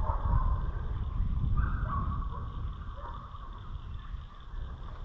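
Wind buffeting a helmet-mounted camera's microphone, an uneven low rumble that comes and goes, with faint higher sounds in the background.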